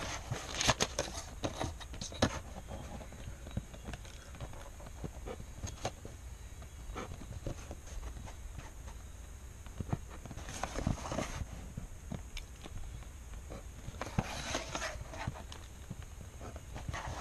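Pen drawing straight lines along a clear plastic ruler on paper, in short scratchy strokes about a second in, around eleven seconds and again about fourteen seconds in, with scattered light clicks and taps as the ruler is shifted and set down.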